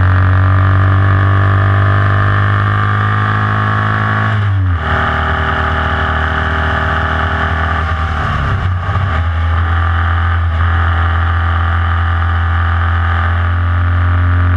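Formula Vee race car's air-cooled Volkswagen flat-four engine running hard at high revs, heard from on board. About four and a half seconds in the note breaks briefly, as for a gear change, and a few seconds later the revs dip and climb back up.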